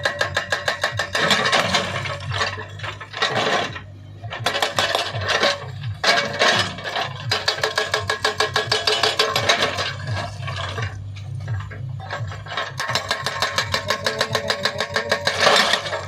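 Hydraulic rock breaker on a JCB 3DX backhoe loader hammering in rapid metallic blows, in runs of a few seconds with short pauses about four seconds in and again past the middle, over the backhoe's diesel engine running steadily.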